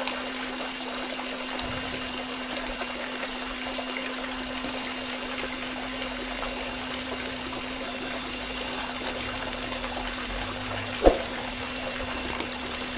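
Homemade mini water pump driven by a small DC motor, running with a steady hum while its stream of water pours and splashes into a shallow pool. A single sharp knock comes about eleven seconds in.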